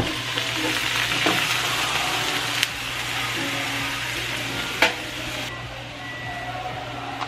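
Water poured into a hot frying pan of sautéed onion and squash, sizzling and hissing, with a few sharp clacks of a spatula against the pan. The hiss eases about five and a half seconds in.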